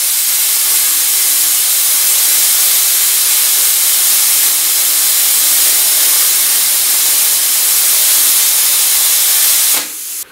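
A Stahlwerk CUT 50 plasma cutter's arc burning at the torch of a CNC table, a loud steady hiss of arc and air that cuts off suddenly near the end.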